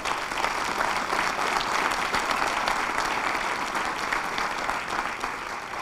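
A large audience applauding, dense steady clapping that starts to thin out near the end.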